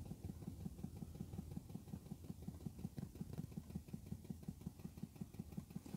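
Chinese diesel heater's 'silent' fuel dosing pump ticking faintly and rapidly, about seven even pulses a second, while priming the fuel line. It is quieter now that the line is filling with fuel.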